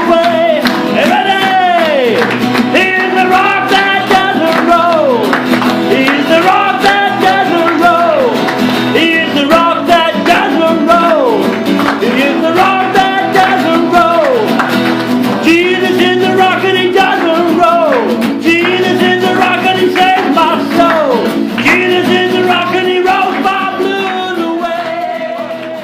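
A group singing an upbeat worship chorus to guitar, the same phrase repeated over and over, fading out near the end.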